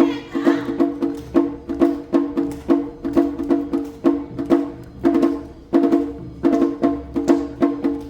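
Awa Odori festival music played by a ren's band: percussion struck in a quick, even rhythm over sustained pitched tones.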